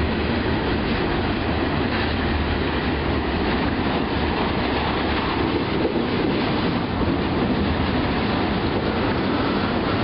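CSX double-stack intermodal freight train's well cars rolling past, a steady rumble of steel wheels on rail with a few faint clicks.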